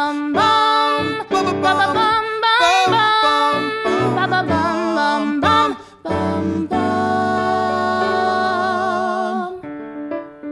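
Music: a singer's wordless vocal line over guitar, ending on a long held note with vibrato; quieter piano notes come in near the end.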